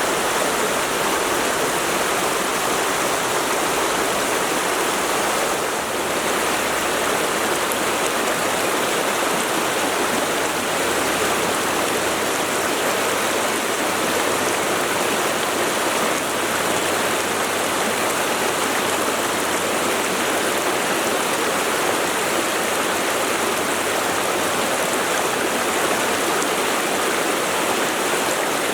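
Mountain stream rushing over rocks, a steady full rush of flowing water.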